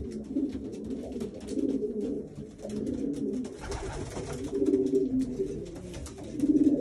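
Several racing pigeons cooing, their low coos overlapping continuously, with scattered light clicks and a brief rush of noise about three and a half seconds in.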